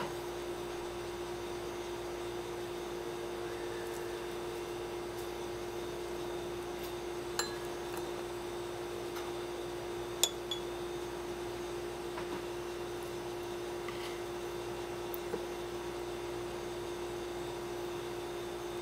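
A few light clinks of chopsticks against a glass shot glass, four short ticks spread out, the loudest a little past the middle, over a steady hum.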